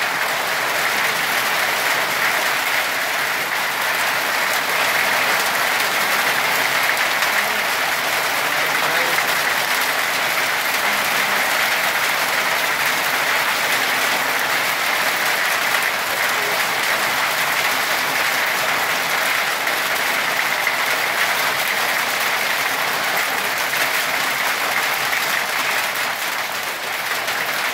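Hailstones falling thickly onto concrete paving and gravelly ground: a dense, steady rush of countless small impacts.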